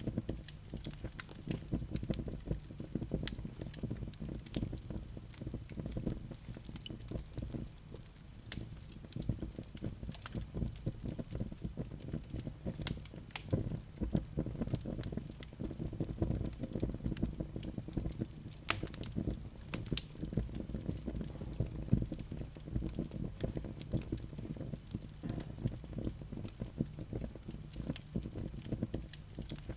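Wood fire burning in a fireplace: a steady low rumble of flames with frequent sharp crackles and pops from the logs, a few louder pops scattered through.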